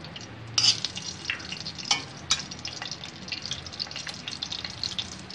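Ghee sizzling and crackling in a hot kadhai as ground asafoetida (hing) is tipped into it, with scattered sharp spatters. The loudest crack comes about half a second in.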